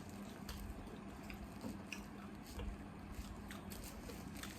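Close-up eating sounds: soft wet chewing with scattered small mouth clicks and squishes, over a faint steady hum.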